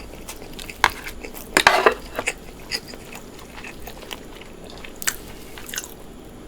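Close-miked eating sounds: a person biting and chewing food, with a loud crunchy bite about one and a half seconds in and scattered wet clicks of the mouth around it.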